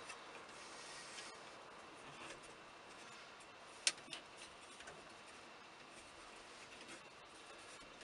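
Faint rubbing and light clicks of parts being handled and fitted on a 1983 Jeep Wagoneer's steering column, with one sharp click about four seconds in.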